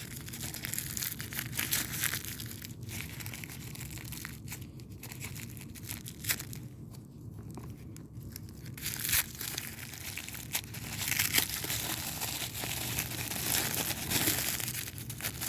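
Plastic toy packaging being crinkled and torn open by hand, in irregular crackles with a quieter lull partway through.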